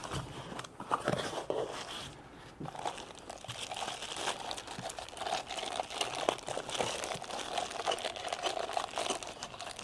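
Cardboard box flaps being opened with a few sharp clicks, then a clear plastic bag crinkling continuously as a wrapped part is handled and lifted out of the box.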